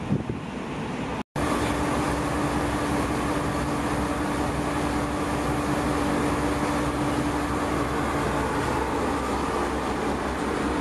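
Wind on the microphone for about a second, then after a sudden cut a car ferry's machinery drones steadily, with a steady hum tone running through it.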